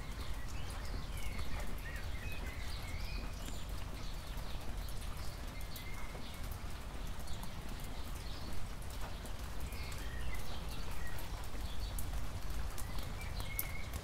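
Rain falling on asphalt and grass, with close raindrops tapping sharply and irregularly over a steady low rumble. Short high chirps come through now and then.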